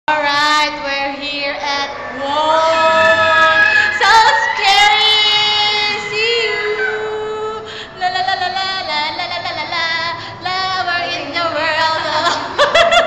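High female voices singing long held notes without clear words, the pitch sliding up and wavering between notes.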